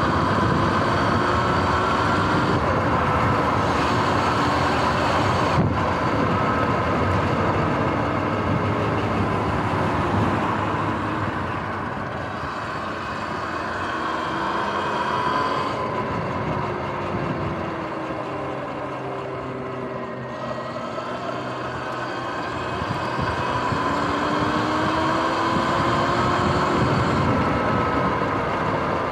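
Sur-Ron X electric dirt bike riding along, its motor whine rising and falling in pitch several times as it speeds up and slows, over a steady rush of wind and tyre noise.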